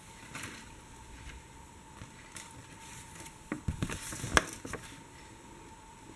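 A sheet of printer paper being handled and held up, crackling and rustling with small handling clicks, busiest and loudest about three and a half to five seconds in, over a faint steady tone.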